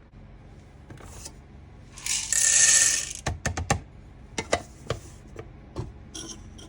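Whole coffee beans poured with a rattle for about a second, followed by a string of sharp clicks as single beans and hard plastic parts knock together.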